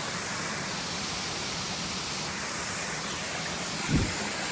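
Waterfall rushing steadily, an even noise with no break. A brief low thump about four seconds in.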